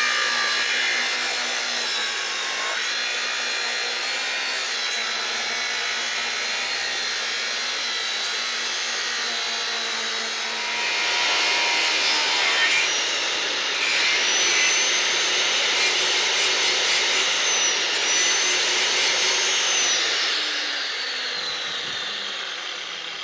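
Milwaukee angle grinder running under load, grinding down a Peterbilt engine-mount bushing to a smaller diameter. A steady high whine over the grinding noise gets louder and harsher about eleven seconds in, then the motor winds down with a falling whine near the end.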